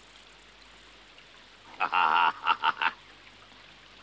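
A man laughing heartily about two seconds in: one long burst, then a few short, chopped 'ha's.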